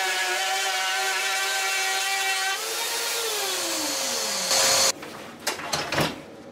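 Handheld plunge router on a circle-cutting jig, running with a steady whine as it cuts melamine board, then switched off about two and a half seconds in, its pitch falling as the motor winds down. Near the end of that, a loud rush of noise cuts off suddenly, and a few knocks follow as the tool is handled.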